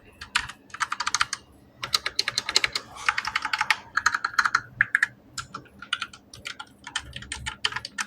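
Evofox Katana S Mini mechanical keyboard with red linear switches being typed on: fast runs of keystrokes in bursts with short pauses between them.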